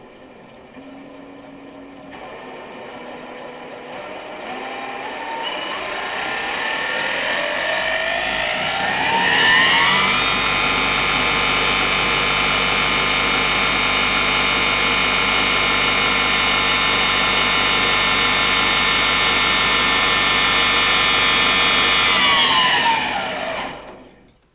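Turnigy CA80-100 brushless outrunner motor spinning a Suzuki RF400 motorcycle gearbox through a belt on a bench test run. The whine rises in pitch over about eight seconds, holds steady and loud for about twelve, then winds down and stops near the end.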